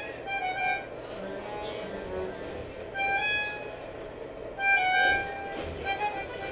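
Bandoneón playing held, reedy chords in short phrases with gaps between them, over the steady rumble of a moving train carriage.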